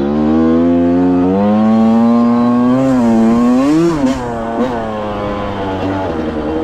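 Two-stroke engine of a 2005 Yamaha YZ125 dirt bike running under throttle. Its pitch climbs and holds, rises briefly about four seconds in, then drops to a lower steady note, with a couple of short clicks as it drops.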